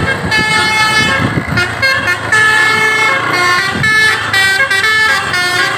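Tour bus's telolet Basuri horn, driven by a DAV module, playing a tune: a run of loud held notes that step from pitch to pitch.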